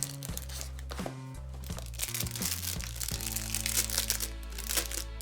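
Background music with a steady bass line, joined about two seconds in by the crinkling of plastic packaging being handled.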